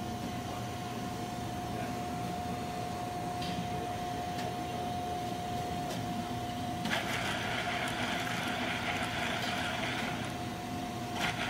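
Vertical PTFE ram extrusion machine running as its ram presses down into PTFE powder: a steady whine over a low hum. About seven seconds in a hiss joins for about three seconds, and again briefly near the end.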